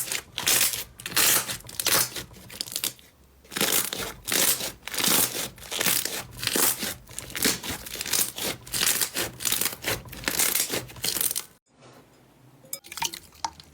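Slime being squeezed and pressed by hand close to the microphone: a run of crackling, crinkling squelches about twice a second. A little under twelve seconds in it breaks off and is followed by quieter, finer sticky pops and clicks.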